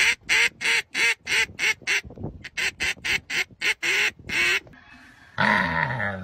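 Duck call quacking in a fast, even series of about four quacks a second, sounded by the breath of the black Labrador holding it in its mouth; the quacking stops about three-quarters of the way through. Near the end a drawn-out animal vocal sound with a falling pitch begins.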